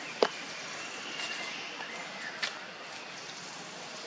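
Outdoor background hiss with a sharp click about a quarter second in and a smaller one about two and a half seconds in.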